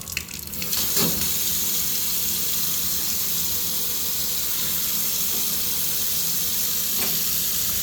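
Water tap turned on and running in a steady, even gush, after a click or two as the handle is turned. The faucet has a newly fitted valve cartridge, and it is being run to check for leaks.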